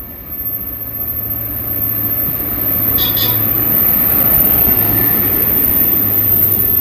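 SB Rail track tamping machine running through the station, its engine humming steadily and its wheels rumbling on the rails, getting louder as it passes close by. A brief shrill tone sounds about three seconds in.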